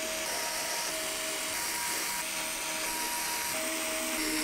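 Small electric screwdriver running steadily, driving long machine screws through PC case fans into an aluminium AIO radiator, with soft background music underneath.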